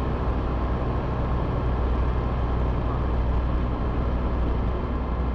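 Ultralight aircraft's engine and propeller droning steadily in flight, heard from inside the cockpit with a steady hiss of noise over the low rumble.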